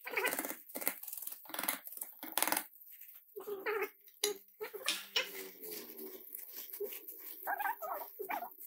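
Baby monkey giving several short, whining cries, over clicks and rustles of rice and fruit pulp being tipped into a metal pot.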